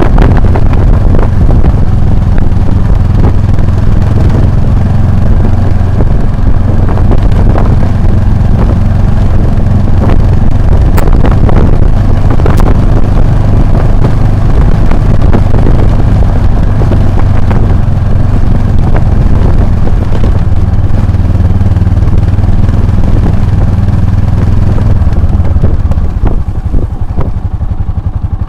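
Motorcycle engine running steadily while riding over rough ground, with frequent knocks and rattles over it. The engine eases off near the end.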